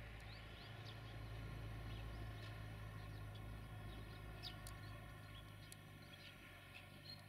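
Quiet outdoor ambience: faint, scattered small-bird chirps over a steady low hum.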